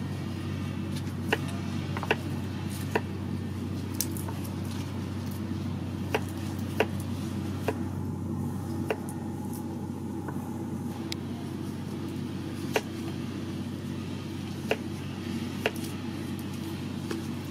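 Large kitchen knife slicing garlic cloves on a round wooden chopping block: sharp, irregular taps of the blade hitting the wood, roughly one a second with pauses, over a steady low hum.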